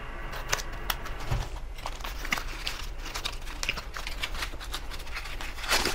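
Paper wrapping being torn and peeled off a plastic stroller-wagon wheel: crinkling and tearing with many scattered plastic clicks, and a louder rustle near the end.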